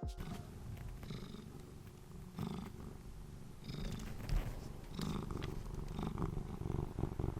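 A domestic cat purring steadily, with a few short, soft noises over it.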